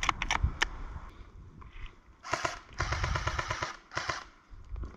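Airsoft guns firing: a few quick single shots right at the start, then rapid bursts of automatic fire from about two to four seconds in, the longest lasting about a second.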